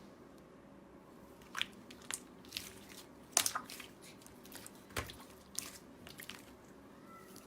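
Slime being squeezed and pressed by hand, giving irregular crunchy crackles and pops that start about a second and a half in, the loudest a little past three seconds and again about five seconds in.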